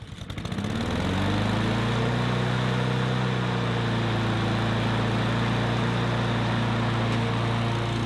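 Honda walk-behind mower's four-stroke engine catching on the pull-start and spinning up over about a second, then running steadily at speed. It starts readily on its newly fitted manual choke.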